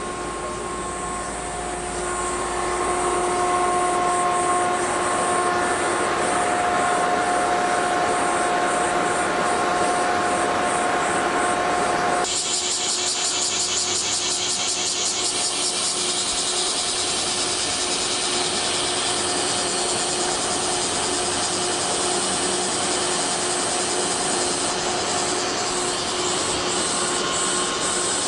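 Summer cicadas buzzing in a loud, rapidly pulsing chorus, with a steady electrical hum under it for the first twelve seconds. The sound changes abruptly about twelve seconds in, and the high buzzing gets stronger.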